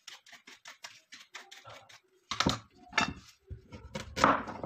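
Kitchen knife working a carrot on a cutting board: quick light clicks, about five a second, for the first two seconds. Then heavier knife strikes on the board, about one every half second, the loudest near the end.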